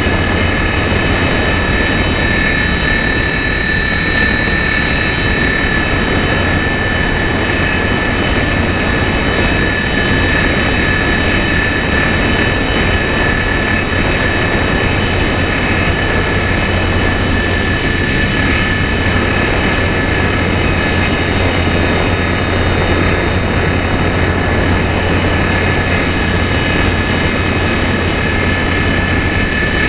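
Electric motor and propeller of a Slow Stick radio-control plane at full throttle in a climb, picked up by its onboard camera: a steady high whine over a rushing propeller and airflow noise. No change in pitch or level.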